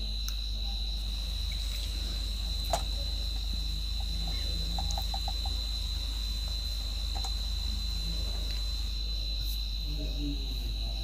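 A steady, unbroken high-pitched insect trill, with a low steady hum beneath it and a few faint clicks.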